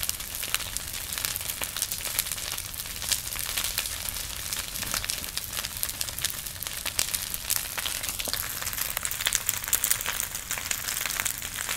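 Wooden frame structure burning in a large bonfire, crackling steadily with many sharp snaps and pops.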